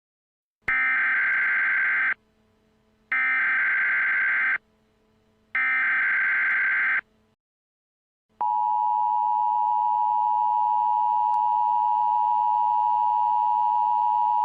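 Emergency Alert System broadcast tones: three identical short bursts of screechy digital data (the SAME header) about a second apart, then from about eight seconds in the steady, harsh two-tone EAS attention signal.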